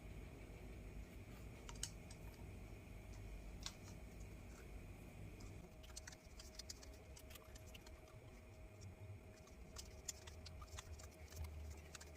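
Faint, light clicks and crinkles of thread-seal tape being pulled off its roll and wound round a tap's threads. The clicks are sparse at first and come thick and fast in the second half, over a faint steady hum.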